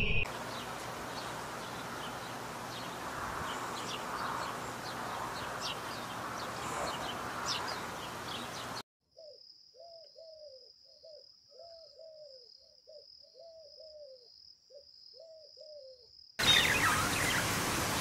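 A steady outdoor hiss with short high chirps of small birds. After a sudden cut, rock pigeons coo softly in a run of low rising-and-falling coos over a faint steady high tone. Near the end the sound switches suddenly to budgerigars chirping.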